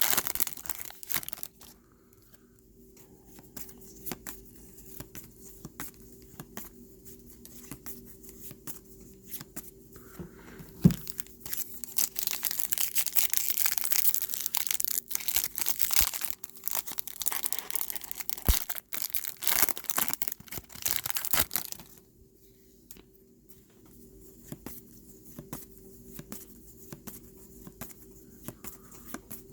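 A trading card pack wrapper being torn open and crinkled, loudest and most continuous from about a third of the way in to about three quarters, with lighter rustling and clicking of the wrapper and cards handled before and after.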